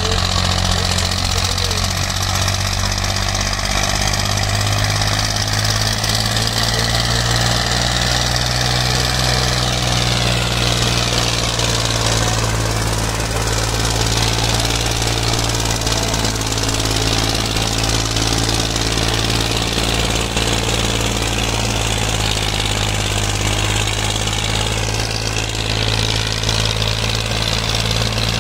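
Massey Ferguson 240's three-cylinder diesel engine running steadily under heavy load with a knocking diesel clatter as the tractor pulls a disc harrow through the soil.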